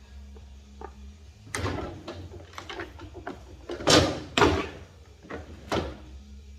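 A series of clunks and knocks from handling a subwoofer and its enclosure while it is being mounted. The two loudest come close together about four seconds in.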